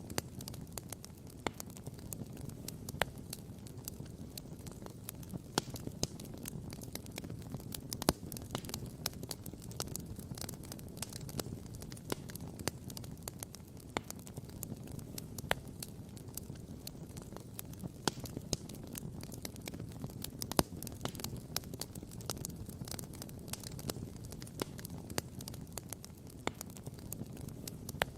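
Wood campfire crackling, with irregular sharp pops, the loudest about 8 and 20 seconds in, over a steady low rushing background.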